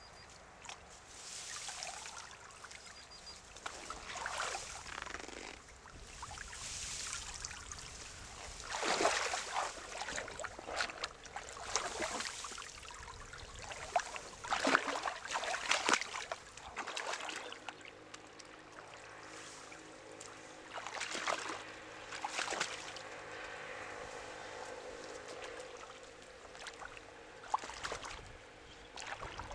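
Shallow stream water splashing and sloshing as a person wades and gropes along the bottom by hand, in irregular bursts, loudest around the middle.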